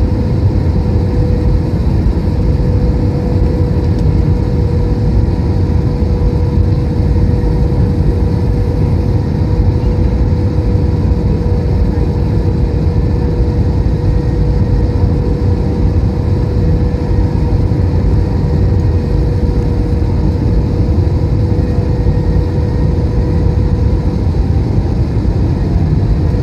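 Steady cabin noise inside an Airbus A321 airliner: a loud, even engine and air drone with a constant hum, unchanging throughout.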